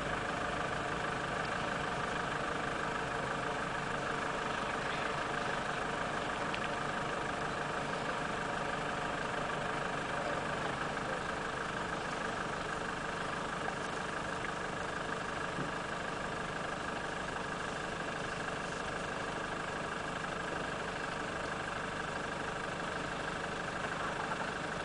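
A parked vehicle's engine idling steadily.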